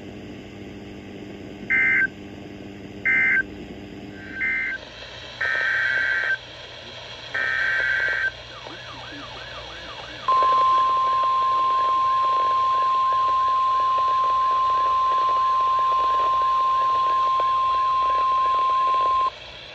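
Emergency alert data bursts from a NOAA Weather Radio broadcast: three short bursts of warbling digital tones, then two longer bursts. Then the steady 1050 Hz weather alert tone sounds for about nine seconds and cuts off. This is the end-of-message code of one warning, followed by the header code and alert tone that open the next.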